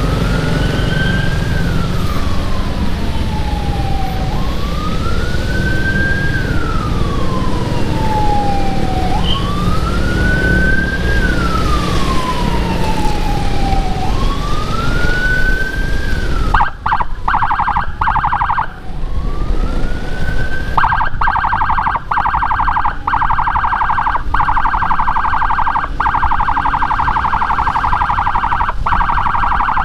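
Electronic siren from a Whelen HHS Lite module through a Senken YD100i horn speaker. It wails in slow cycles of about five seconds, each rising quickly and falling slowly, then about halfway through switches to a fast warble, broken once by a short rise. A low rumble runs underneath, strongest during the wail.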